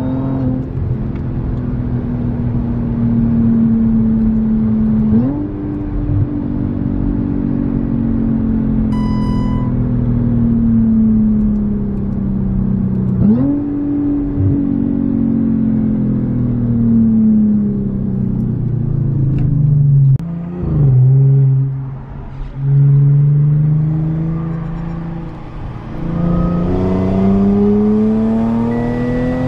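Audi S5's supercharged 3.0-litre V6 through an X-pipe and muffler-delete exhaust: the revs sink slowly as the car slows, jump up sharply twice, about five and thirteen seconds in, drop low around twenty seconds, then climb steadily under acceleration near the end. A short beep about nine seconds in.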